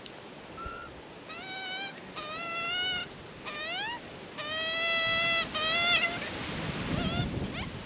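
Juvenile Australian magpie begging: a string of repeated calls, each sweeping up in pitch and then holding, with the longest and loudest about halfway through.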